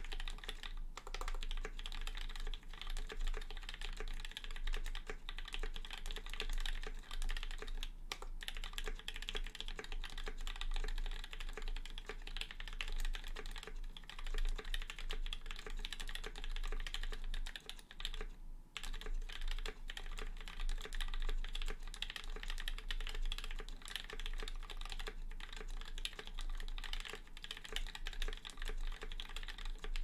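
Continuous fast typing on a Raine 40% mechanical keyboard with carbon fiber plate, Gateron Giants switches (lubed, with switch films) and JTK Raindrop keycaps: a steady stream of keystroke clacks, with a brief pause about eighteen seconds in.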